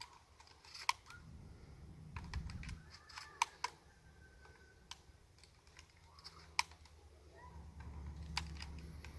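Pump-action shotgun being loaded by hand: a handful of sharp, irregularly spaced metallic clicks as shells are pushed into the magazine, with low rumbling handling noise in between.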